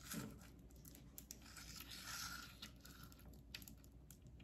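Faint crinkling and rustling of a plastic-wrapped canvas as a tape measure is drawn out across it, with a few light clicks.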